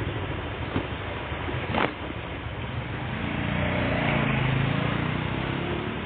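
A motor vehicle passing, its engine hum swelling and fading over about three seconds, over a steady hiss of rain. Two sharp knocks come in the first two seconds.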